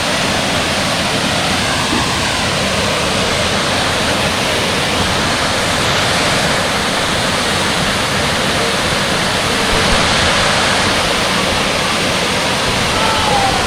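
Waterfall pouring into a pool: a loud, steady, unbroken rush of falling water.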